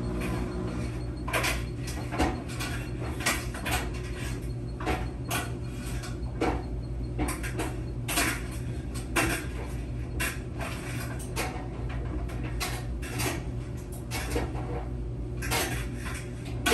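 Laundry machine running: a steady low motor hum with irregular clicks and knocks from the drum, one or two a second.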